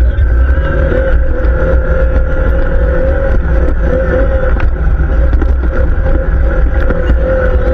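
ATV engine running at a steady speed, a constant drone over a heavy low rumble, cutting in suddenly at the start.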